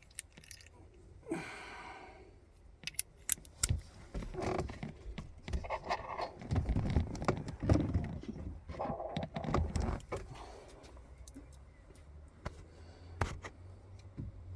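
Small metal parts clinking and rattling, with many sharp clicks and knocks, as door handle hardware and tools are handled. It is busiest from about three to ten seconds in.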